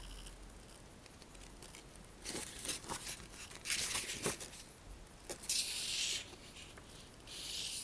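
Pages of a paper instruction booklet being turned by hand: a run of short rustles and flaps a couple of seconds in, then two longer rustles of paper toward the end.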